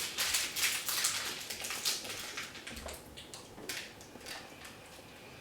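Plastic snack wrapper crinkling as it is handled, a rapid run of crackles that thins out about halfway through into a few scattered rustles and ticks.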